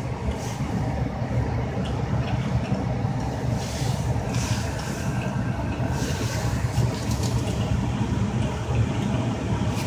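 Carrier 58PAV furnace's circulating blower running steadily, a low hum with a rush of air. This is the blower-on period after power-up that the control's 1-2 flash signals; the inducer is not yet running.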